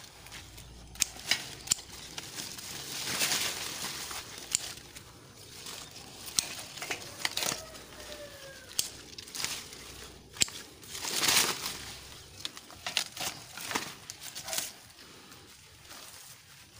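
Grapevine leaves and branches rustling and crackling as they brush past, with scattered sharp clicks and two louder swells of rustling, about three and eleven seconds in.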